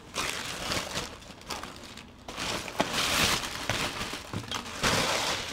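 Clear plastic bag crinkling and rustling in several short bursts while skeins of yarn are handled and pulled out of it.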